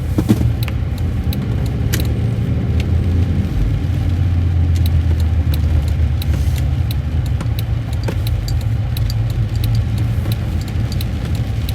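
Cabin noise inside a Jeep while driving: a steady low engine and road rumble that swells for a couple of seconds about four seconds in, with scattered light ticks and rattles.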